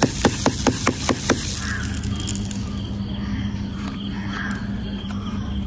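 A cardboard sky-shot firework tube rapped upside down against a paper-covered concrete floor, about five quick knocks a second for the first second and a half, to shake loose the tightly packed shell inside. The knocking then stops, leaving insects chirping steadily over a low hum.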